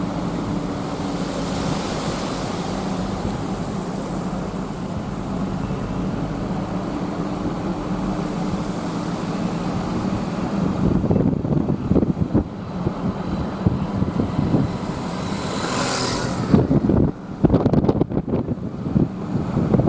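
Strong gusty wind buffeting the microphone over a steady low rumble with a hum; the gusts grow heavier and more uneven about halfway through.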